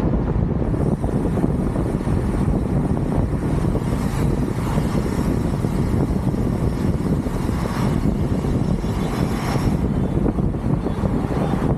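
Steady, loud wind rumble on the microphone from riding a bicycle.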